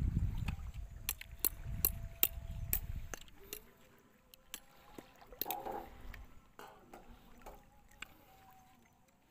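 Legs wading through shallow water, sloshing for about the first three seconds with several sharp clicks and splashes, then quieter lapping of water.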